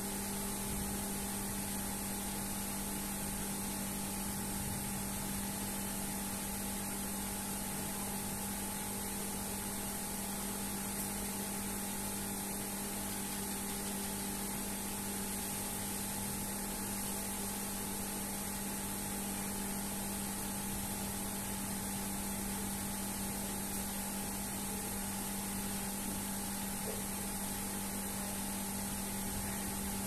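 Steady electrical hum with a hiss, unchanging throughout, with no bird calls or other events.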